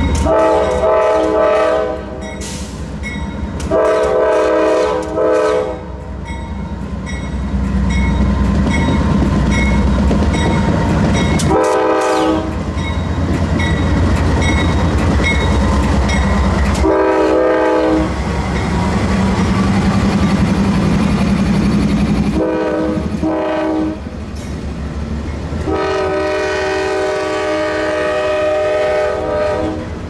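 CSX diesel freight locomotive's multi-chime air horn sounding six blasts of different lengths, the last and longest lasting about four seconds near the end. Between blasts the locomotive's engine rumbles low and the empty coal train clicks along the rails.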